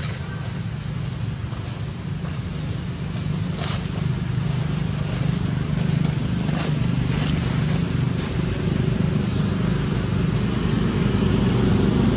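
A steady low motor rumble with a few faint clicks, growing slightly louder toward the end.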